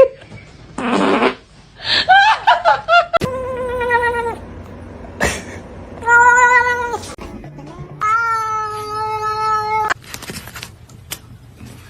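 A cat meowing and yowling: a few short wavering calls, then three long drawn-out yowls, the last lasting about two seconds.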